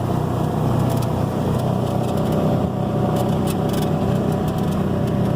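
Side-by-side utility vehicle's engine running steadily at low speed, heard from on board, with a few light clicks and rattles.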